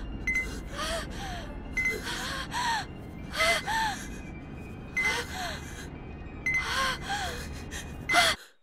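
Gasping, panting breaths with a short rising-and-falling voiced catch, repeating in an even rhythm about every second and a half. Each repeat has a brief high beep, and a low rumble underneath cuts off near the end.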